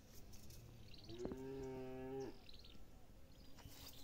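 Cattle mooing: a single steady, low moo lasting about a second, starting about a second in.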